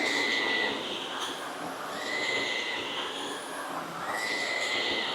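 Shark NV360 Navigator upright vacuum running, its motor whine swelling and rising in pitch about every two seconds over a steady rush of air.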